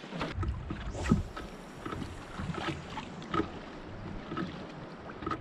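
Pedal-drive skin-on-frame canoe moving on calm water, with a low rumble of water along the hull and a faint squeak that repeats about once a second.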